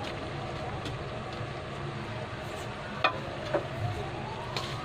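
Steady rushing of a gas stove burner under a wok of simmering soup, with two sharp clicks about three seconds in and a faint rising whine near the end.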